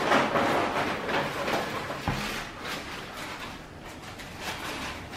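Handling noise from plastic action figures being moved about on a tabletop: an uneven rustle and scuff, with a light knock about two seconds in.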